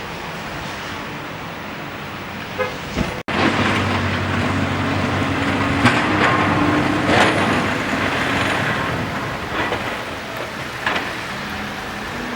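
Road traffic: vehicles running and passing, a steady noise with low engine hum. The sound cuts out for an instant about three seconds in and comes back louder, with a few short sharp sounds after that.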